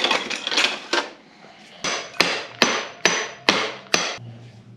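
Hammer striking a metal bolt, about nine blows at roughly two a second, each with a short metallic ring.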